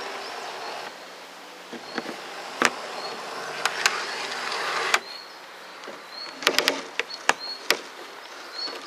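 Model Class 156 Sprinter unit running along the track: its small electric motor whirs steadily and the wheels give several sharp clicks, with a cluster of clicks past the middle.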